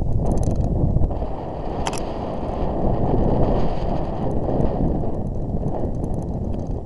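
Wind rushing over the microphone and the rumble and rattle of a mountain bike riding fast down a rough, dusty dirt trail, with a couple of short sharp clicks in the first two seconds.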